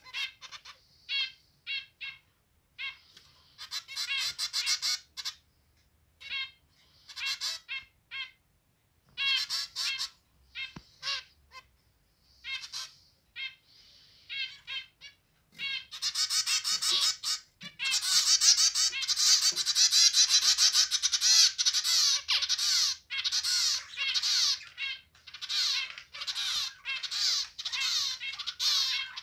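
Zebra finches calling and singing: short, pitched calls in quick runs with gaps between them, which become almost continuous chatter from about halfway on.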